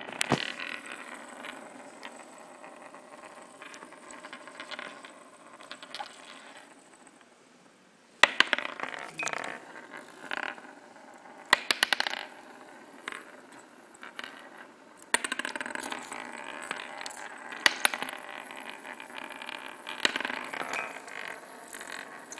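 Several small spinning tops whirring and scraping on a wooden board, with sharp clicks and clacks as they knock into each other and the objects around them. A quieter stretch comes about six seconds in, then louder clacks resume about eight seconds in.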